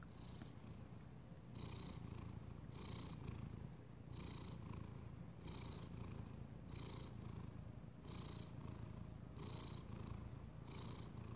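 Domestic cat purring, faint and steady, swelling in a regular rhythm with each breath about every second and a third.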